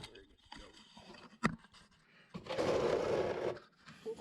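Hand tools and metal parts being handled while an oil drain plug is refitted on a tractor: a sharp click about a second and a half in, then about a second of loud scraping rattle.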